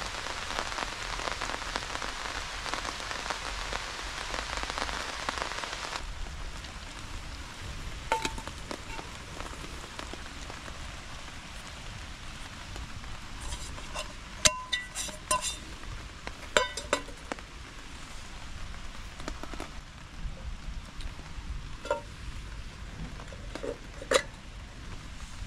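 Rain pattering steadily on a tarp, heavy at first, then dropping abruptly to a softer patter about six seconds in. Through the middle and later part come scattered sharp clicks and short ringing metallic knocks.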